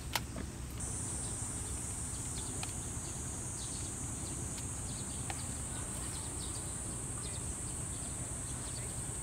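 Cicadas buzzing: a high, steady buzz that comes in about a second in and holds without a break. A single sharp click comes just at the start.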